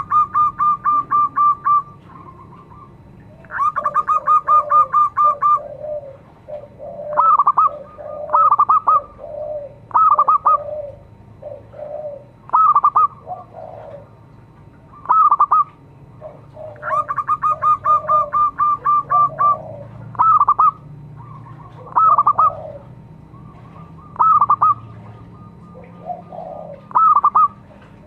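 Zebra dove (perkutut) calling. Three long bursts of rapid staccato cooing notes, each about two seconds long, come at the start, about four seconds in, and again around seventeen seconds in. In between are short single coo phrases every couple of seconds, with softer, lower notes.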